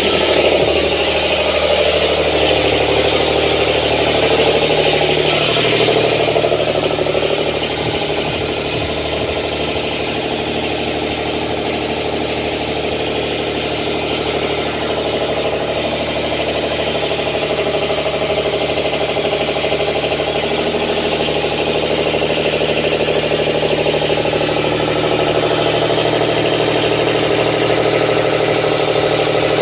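A yacht's generator engine running steadily at a constant speed, giving an even engine hum.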